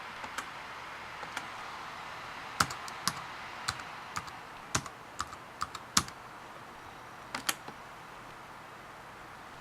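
Typing on a laptop keyboard: an irregular run of separate keystrokes, some noticeably harder than others, that stops a couple of seconds before the end.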